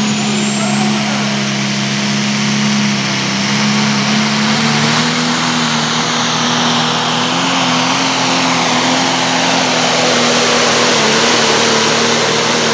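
Pro stock pulling tractor's turbocharged diesel running flat out as it drags the weight-transfer sled down the track. A high whistle rises in the first second, then the engine holds a steady, loud drone whose pitch creeps slightly upward.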